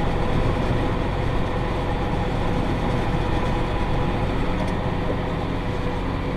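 Massey Ferguson 5610 tractor running steadily while pulling a John Deere 468 round baler through the hay: a constant engine and drive drone with a steady whine on top.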